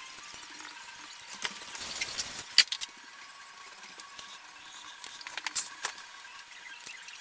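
A coloring tool rubbing and scratching over paper, with scattered sharp clicks and taps, the loudest about two and a half seconds in and a few more near the six-second mark.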